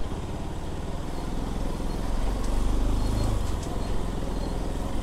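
Motorcycle engine running at low speed, its revs rising a little about two seconds in and easing off again after about three and a half seconds.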